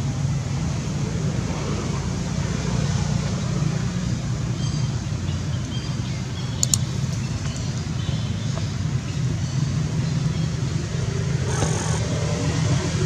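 A steady low motor rumble with an even hiss, like a vehicle engine running, with one sharp click about six and a half seconds in.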